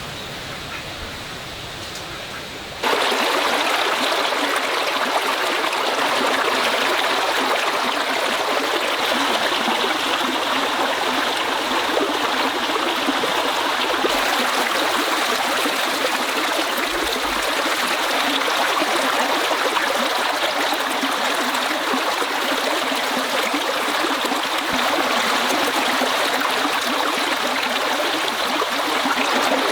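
Running stream water, a steady rushing and gurgling that starts abruptly about three seconds in and continues evenly.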